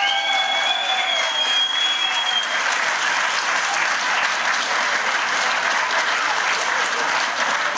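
Crowd applauding steadily. Over the first two seconds a single high, held note rises and then holds above the clapping.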